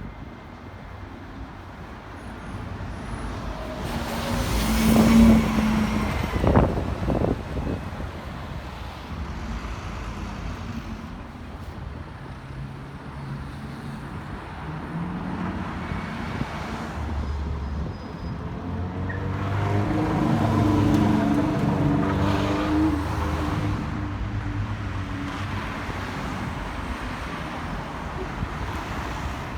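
City street traffic, with motor vehicles passing close by. Two louder passes stand out: a short one about five seconds in and a longer one near the twenty-second mark with an engine hum in it.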